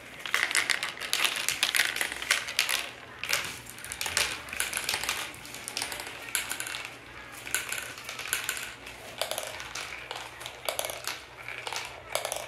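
Small plastic balls rolling and clattering through a plastic marble run: a fast, uneven stream of clicks and rattles as they swirl around a funnel bowl, drop through the tubes and run along the curved track, busiest in the first half.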